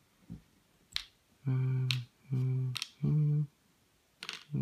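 A man hums three short, steady notes, the last a little higher, with a sharp click about a second in and another after the second note.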